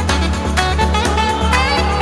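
Background music track: an upbeat jazzy, swing-style instrumental with plucked guitar, a bass line and a steady drum beat.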